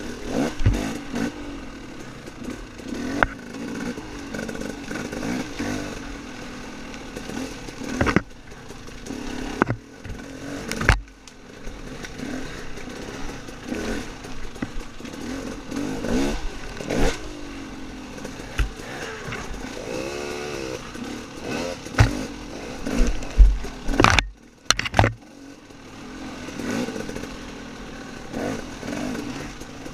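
Off-road dirt bike engine running under constant throttle changes, the revs rising and falling as it rides a rough woods trail. Sharp knocks from the bike hitting bumps and obstacles come several times.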